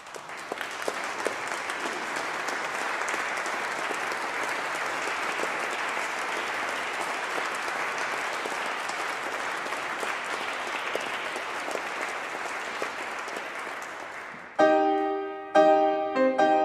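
Audience applauding, the clapping thinning slightly before it stops about fourteen seconds in. A Fazioli grand piano then starts playing, its opening notes louder than the applause.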